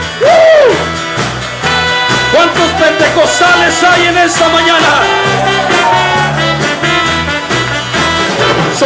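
Band playing upbeat worship music, with a moving bass line, a steady beat of drums and a lead melody that slides up and down.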